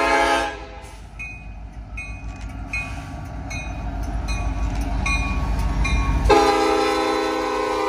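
Kansas City Southern diesel freight locomotives passing close: the end of an air-horn blast at the start, then a heavy low engine rumble that grows louder, with a bell dinging about every three-quarters of a second. The air horn sounds again, loud, about six seconds in.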